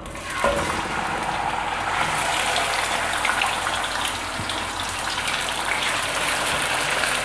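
Raw chicken pieces dropping into hot oil in a karahi and sizzling steadily as they start to fry, with a couple of knocks as the pieces land at the start.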